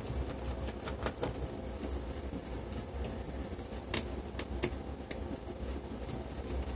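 Small screws and a screwdriver being handled at a laptop screen's mounting brackets: a few faint light clicks over a steady low hum.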